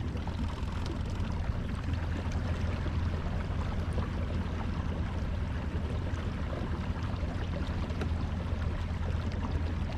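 Kayak under way on open water: a steady low hum with water rushing along the hull.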